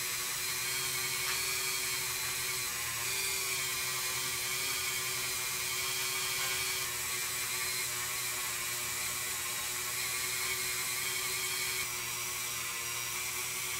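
Handheld rotary tool spinning a small brass wire brush against a bare die-cast metal toy car body, a steady high whine that dips a little near the end. It is scrubbing the last paint and gummy stripper residue off the bare metal to get it ready for paint.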